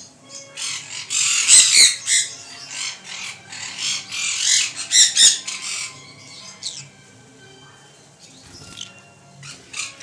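A flock of green-cheeked conures squawking and screeching in loud, dense bursts for the first half or so, then thinning to a few scattered calls after about six seconds.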